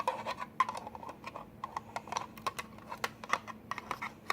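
Rapid, irregular light clicks and taps of small objects being handled, several a second.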